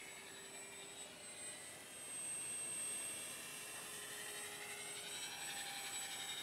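Brushless 2212 2200kv electric motor and 6x4.5 propeller of a radio-controlled electric glider running in flight: a steady high whine that drifts slightly in pitch and grows louder about two seconds in.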